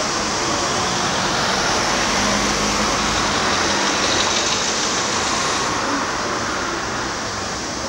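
Road traffic on a multi-lane city street: a steady wash of cars passing, easing off slightly near the end.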